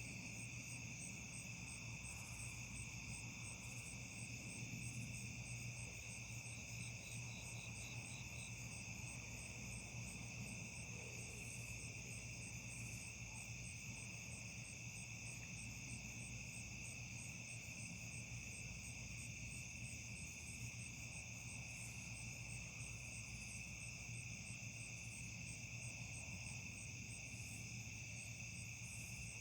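Night chorus of crickets and other insects: several steady, overlapping trills at different pitches, over a low steady hum.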